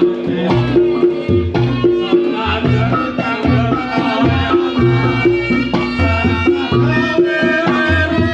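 Reog Ponorogo ensemble music: fast kendang drumming with sustained gong tones and a reedy melody line above.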